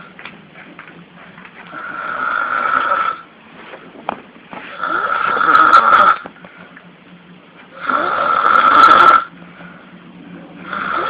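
Loud snoring: four long snores about three seconds apart, with quieter breathing between them.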